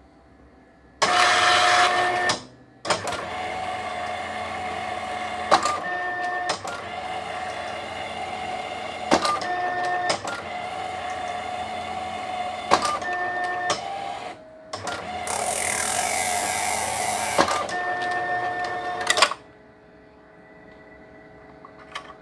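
DataCard SD260L ID card printer printing the back side of a card. Its mechanism starts whirring about a second in and runs steadily, with a sharp click every three to four seconds and two louder, hissier stretches. It stops a few seconds before the end.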